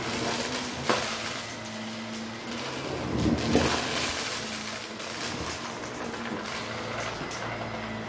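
Shark Navigator upright vacuum running with its brush roll on carpet, sucking up fluff and small plastic bits that crunch and rattle through the head. There is a sharp click about a second in and a louder burst of crunching around three to four seconds.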